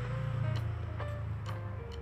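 Background music: a steady low bass note under a simple melody of short stepped tones, with a few sharp clicks scattered through.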